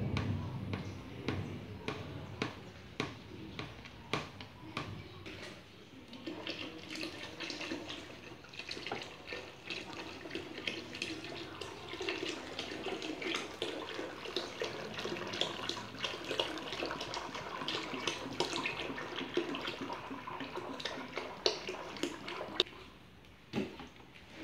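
A wooden stick stirring a lemon juice and caustic soda mixture in a plastic bucket, ticking against the side at a regular pace. From about six seconds in, used cooking oil pours from a plastic bottle through a plastic strainer into the bucket: a steady splashing pour that stops shortly before the end, followed by a single click.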